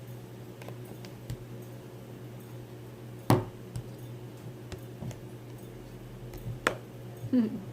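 Two sharp taps of tableware or containers being handled, about three seconds apart, over a faint steady hum.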